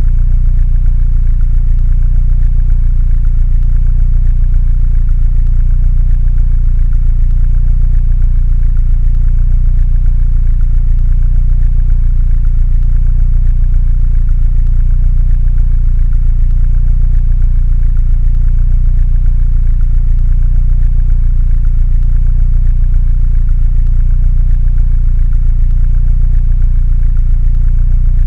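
Mini Cooper engine idling steadily, a low, even rumble that does not change.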